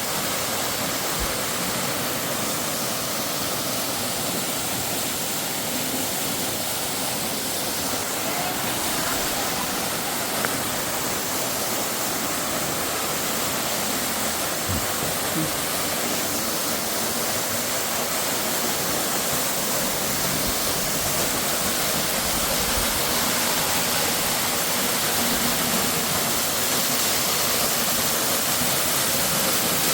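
Pam's Grotto waterfall rushing steadily, a continuous even noise of falling water that grows slightly louder over the last third.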